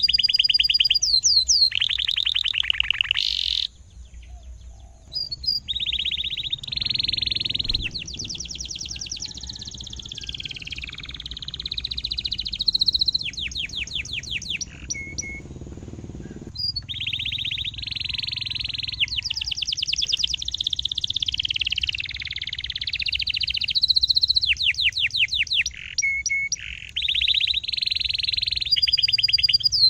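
Domestic canary singing a long song: phrases of rapid rolling trills, chirps and quick high sliding notes, one after another with brief pauses between.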